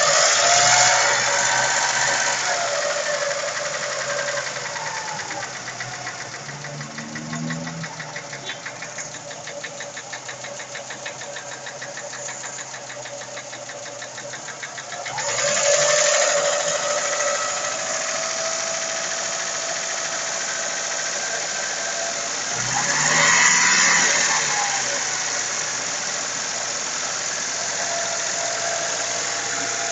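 Engine running with a fast, even knocking from inside it, revved up three times: at the start, about halfway through and again a little later, settling back each time. The knock is the engine fault the owner is showing.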